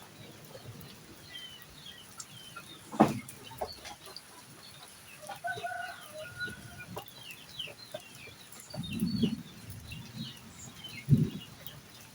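Chickens clucking, with many short high peeps through most of it and a longer call in the middle. A sharp knock about three seconds in and a thud near the end.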